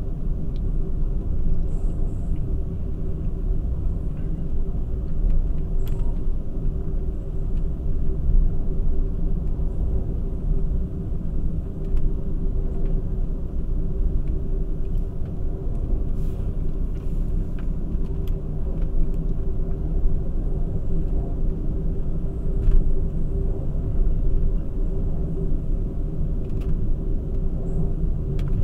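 Amtrak passenger train running at speed, heard from inside the car: a steady low rumble of wheels on rail with a constant hum and a few faint clicks, as the train crosses a steel truss bridge.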